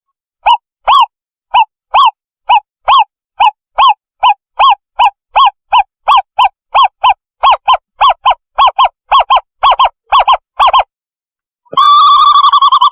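Owlet call played as a bird-trapping lure: a series of short, clear hooting notes that speed up steadily, each rising then falling in pitch. About a second before the end the notes merge into one continuous wavering trill.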